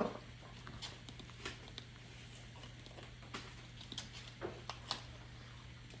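Faint scattered clicks and taps, a few sharper ones near the end, of parrots pecking at and crunching shredded wheat, over a steady low hum.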